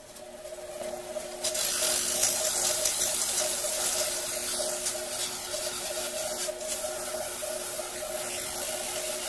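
Small metal lathe running with a steady hum while sandpaper is held against a spinning Delrin part to take off the sharp edges. A loud hissing rasp starts about a second and a half in and goes on steadily.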